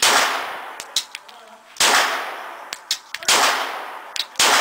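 Glock 17 9mm pistol fired in a steady slow string: four loud shots about a second and a half apart, each trailing a long echo, with fainter sharp cracks in between.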